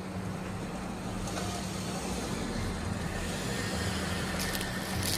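A road vehicle's engine running with a steady low hum, while road noise slowly grows louder.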